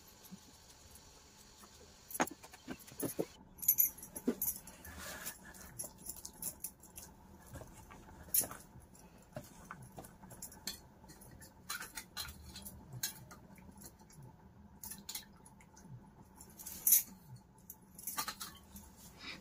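Irregular small clicks and taps of a kitchen knife cutting tomato against a plate and of steel bowls being handled, with a sharper metal clink about eight seconds in and another near the end.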